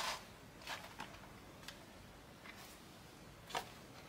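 Faint scattered ticks and light handling noises from hands gripping and turning a Nike Vaporfly Next% 3 running shoe in its box, with one sharper click about three and a half seconds in.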